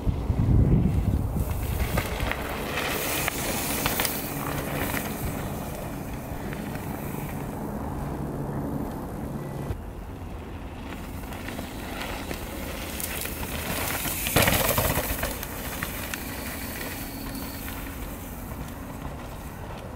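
Santa Cruz Megatower mountain bike ridden on a dirt trail: tyres rolling and the bike rattling over rough ground. A loud clatter comes about fourteen seconds in.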